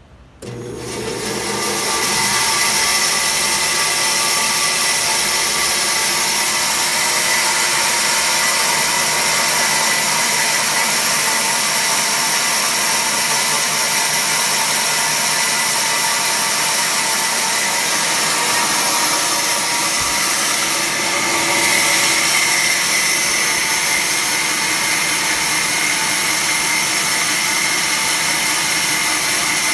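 Automatic band saw starting up and running steadily while cutting sheet material: a loud, even hiss with several steady tones, coming in suddenly about half a second in and settling within a couple of seconds.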